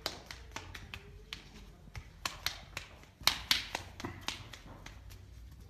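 Footsteps on a hard floor: sharp, irregular clicks about two a second, the loudest a little past halfway, over a low steady hum.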